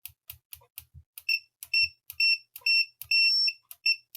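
Owon XDM1241 bench multimeter's continuity beeper giving about six high beeps of uneven length, short and long, among many sharp clicks as the test leads are touched together. The beep is slow to respond to the contact.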